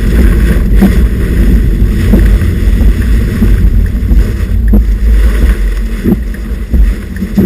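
Strong thunderstorm wind gusts buffeting the microphone: a loud, unbroken low rumble with a few sharp knocks.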